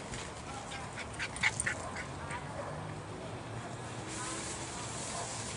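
Nylon rain fly rustling as it is pulled and draped over a dome tent, with a cluster of short sharp sounds about a second or two in and a longer swish near the end.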